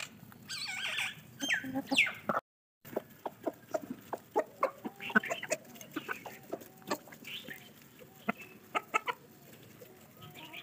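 Flock of chickens, hens and roosters, clucking while feeding, with a louder squawking call in the first two seconds. After a brief dropout come many quick sharp taps of beaks pecking feed on the ground, among soft low clucks.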